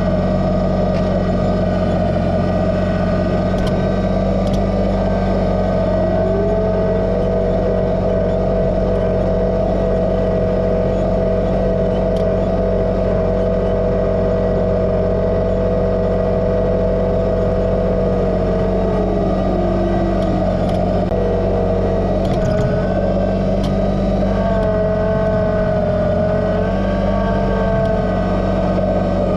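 Kubota BX2380 sub-compact tractor's three-cylinder diesel running at steady throttle, with a whine that rises about six seconds in, holds, and falls away around twenty seconds, then comes back, wavering, near the end.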